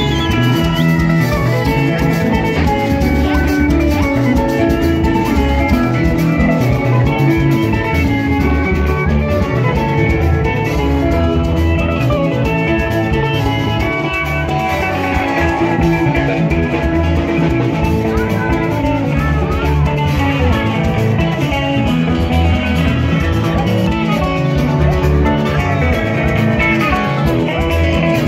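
Live band music over a PA: an acoustic-electric guitar playing lead lines over a steady drum beat, continuous and loud.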